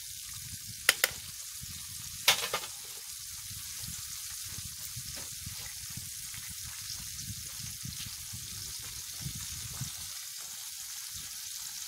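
Mojarras frying in oil in a pan over campfire embers: a steady sizzle, with a few sharp clicks of metal tongs against the pan about a second and two seconds in.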